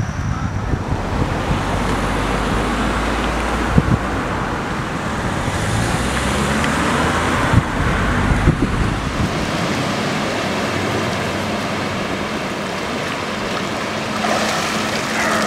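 Wind buffeting the microphone over a steady rush of water, with a few sharp knocks; the low wind rumble eases about two-thirds of the way through.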